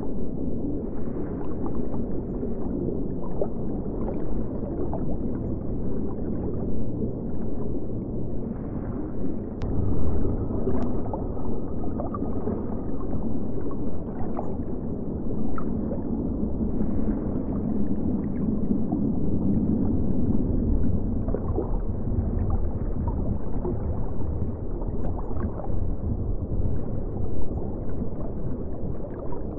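Steady low underwater-style water rumble with scattered small clicks.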